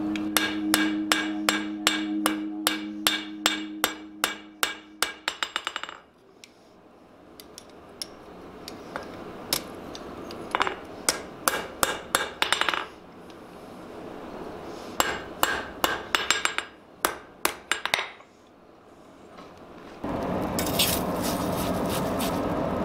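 Hand hammer striking red-hot iron on a steel anvil in quick runs of ringing blows, about four a second, with pauses between the runs. Near the end comes a steady rushing noise from the coal forge fire.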